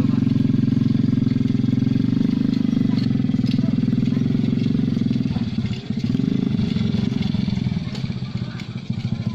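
Motorcycle engine of a homemade car running steadily; a little past halfway its note dips briefly and the exhaust beat turns uneven, then it picks up again.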